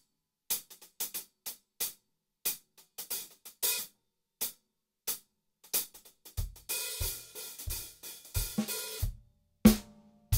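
Drum-kit hi-hat played with sticks: a groove of separate, sharp closed-hat strokes with some accented and some soft. About six seconds in, low drum thumps join and the hats open into a sustained sizzling wash, and a single loud drum hit sounds near the end.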